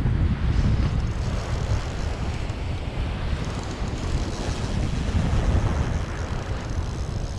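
Wind buffeting the microphone as a steady low rumble, over the even wash of small waves lapping along a sandy shoreline.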